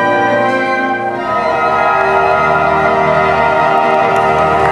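Pit orchestra playing sustained chords; about a second in the harmony shifts to a new chord that is held out, like a closing cadence.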